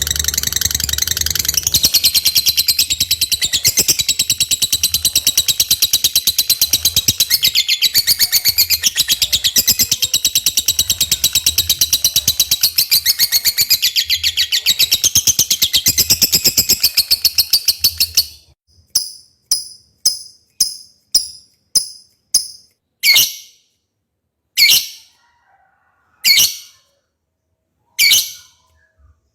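Lovebird singing one long, unbroken high-pitched rapid trill, the extended 'ngekek' prized as 'konslet' song. It cuts off suddenly about eighteen seconds in and is followed by a string of short, sharp high sounds one to two seconds apart.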